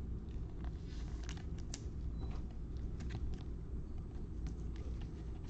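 Faint, scattered clicks and light handling noise from trading cards held and shifted in gloved hands, over a steady low hum.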